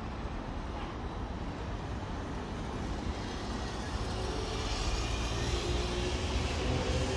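Airbus A320 jet engines at takeoff power, heard at a distance as a steady rumble that grows louder from about four seconds in, with a whine and a high rushing hiss coming in over it.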